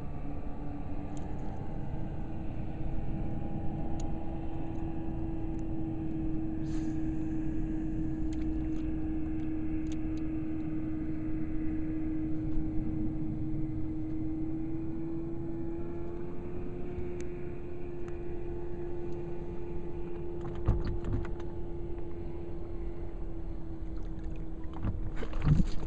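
A boat motor runs with a steady hum over a low rumble, its pitch stepping up slightly about two-thirds of the way through. A few knocks come near the end.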